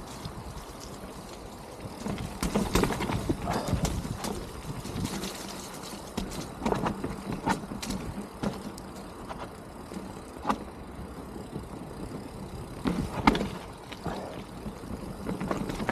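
Mountain bike riding down a rough, wet, muddy trail: a steady rolling rumble from the tyres and frame, broken by irregular knocks and clatters as the bike hits bumps. The loudest knock comes about 13 seconds in.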